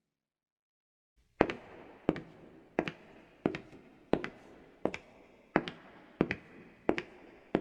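Leather-soled shoes walking at an even pace on soft wooden flooring, each step a quick heel-and-toe knock, about one and a half steps a second. The steps begin after a little over a second of silence.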